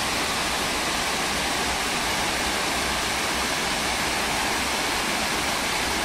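Waterfall cascading down stepped rock into a pool: a steady rush of falling water.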